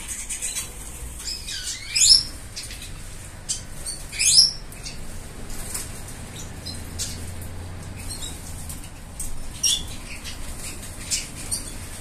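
Small caged finches chirping and fluttering their wings, with scattered short high calls and two louder rising calls about two and four seconds in.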